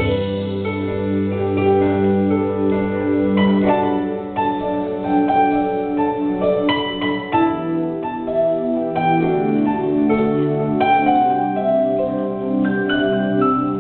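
Electronic keyboard music played live: a run of plucked, harp-like notes over held low bass notes.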